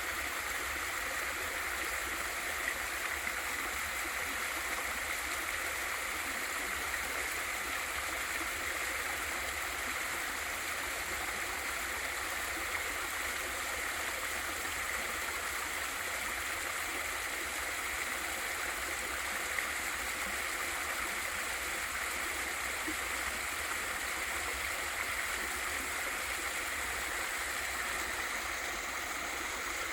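Small waterfall in a mountain valley stream: water pouring and splashing in a steady, even rush.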